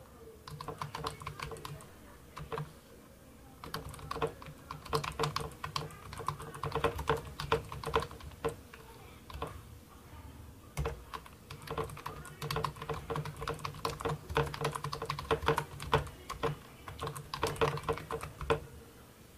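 Typing on an Inote Bluetooth 3.0 keyboard: rapid runs of key clicks, with short pauses about three seconds in and again around the middle.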